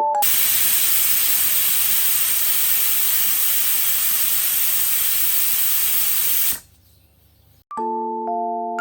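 A loud, steady hiss, like steam or spray, that cuts off suddenly after about six and a half seconds. Soft mallet-keyboard music comes in near the end.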